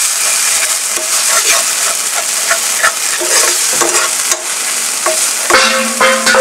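Chopped garlic, onion and green chilli frying in oil with ketchup, soy sauce and chilli sauce in a non-stick pan, sizzling steadily on a low flame. A steel spoon stirs through the mixture, with repeated scrapes and taps against the pan.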